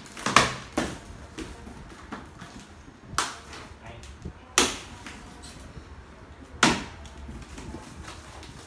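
A large cardboard carton being opened and handled. Several short, sharp cardboard sounds come a few seconds apart, the loudest about half a second in.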